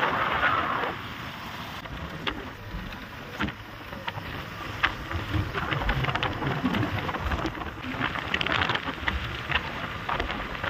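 Wind rushing over the microphone and road noise during a motorcycle ride: a steady rush broken by scattered crackles and knocks.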